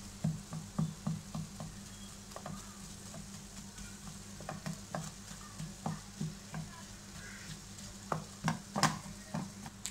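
A spatula tapping and scraping against a nonstick frying pan as it chops cooked chicken pieces into rough chunks, with irregular taps throughout and the sharpest one near the end.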